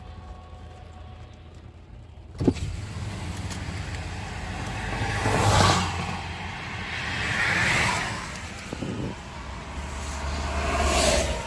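Steady road and tyre noise of a car driving on a highway, heard from inside the car. After a sharp click about two seconds in it gets louder, then swells and fades three times.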